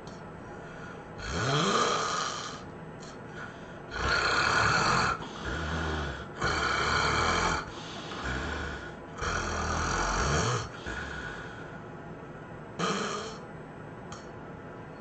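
A sleeping person snoring loudly in uneven bursts, about six in the span. Some snores carry a low rattle, and a couple rise sharply in pitch at their start.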